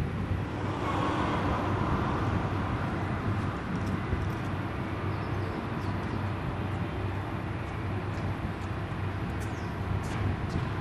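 Diesel railcar running on the Kanto Railway Joso Line, a steady low engine hum under outdoor noise, with a few faint light ticks near the end.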